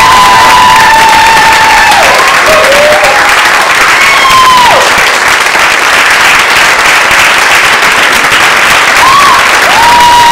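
Audience applauding loudly, with a few long, high cheers held over the clapping that drop away at their ends.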